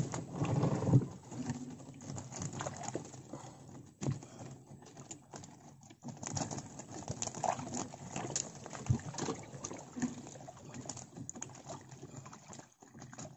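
Irregular light taps, knocks and rattles of catfish and a wire-mesh fish trap being handled as the catch is taken out in a wooden canoe.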